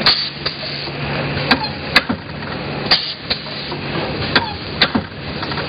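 Packaging machine running: a steady hum with sharp mechanical clacks that come in pairs, one pair about every second and a half.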